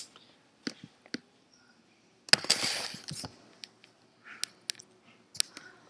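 Handling noise from a handheld camera being carried: scattered clicks and taps, with a loud rustle of something rubbing over the microphone about two seconds in.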